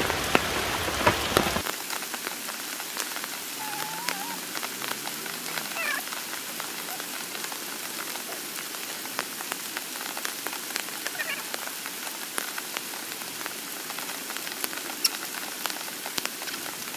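Steady patter of rain, a hiss of falling water dotted with many small drop ticks. A low rumble stops about a second and a half in, and a few faint, brief pitched calls sound around four to six seconds in.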